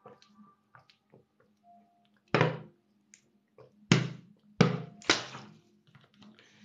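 Drinking from a thin plastic water bottle: four sharp, loud crackles as the bottle flexes, starting about two seconds in, over a faint steady hum.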